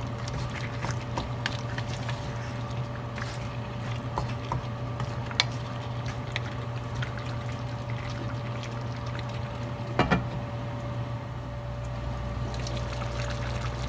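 Wooden spatula stirring a simmering chicken, potato and carrot stew in tomato sauce in a stainless steel pan, with wet bubbling and scraping and small clicks against the pan. A sharp knock about ten seconds in as the pan is covered with its glass lid, over a steady low hum.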